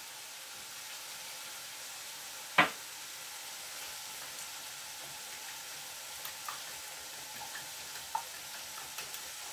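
Wire whisk beating eggs in a glass bowl, with faint ticks of the whisk against the glass, over a steady sizzle of chicken fillet frying with onion and carrot in a pan. One sharp clink about two and a half seconds in is the loudest sound.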